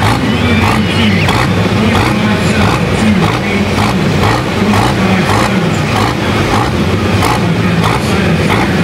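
Diesel engine of a John Deere pulling tractor running after a pull, its pitch wavering up and down as the throttle comes back.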